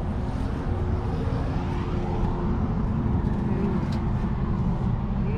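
Steady low rumble of a motor vehicle running.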